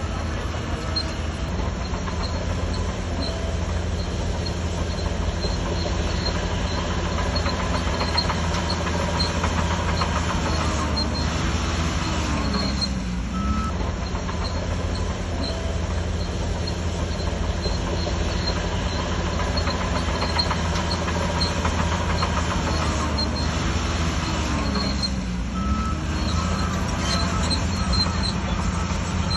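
Crawler bulldozer (Shantui DH17C3) working: its diesel engine runs steadily under load along with the tracks, and the engine pitch dips and recovers twice.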